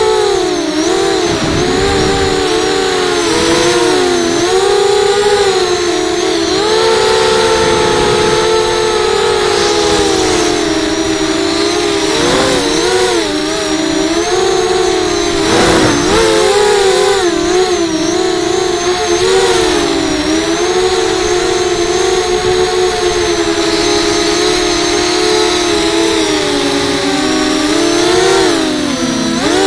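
Racing quadcopter's electric motors and propellers whining, heard from its onboard camera: several close tones that rise and fall together as the throttle changes.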